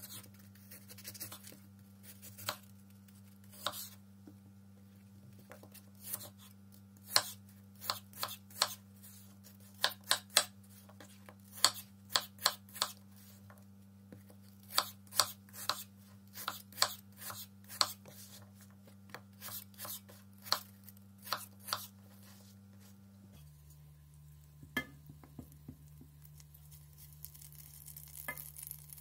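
Kitchen knife cutting peeled apples on a wooden cutting board: sharp knocks of the blade on the board, many in quick runs, over a steady low hum. Near the end, after a change of scene, a few clicks and the faint start of butter sizzling in a stainless saucepan.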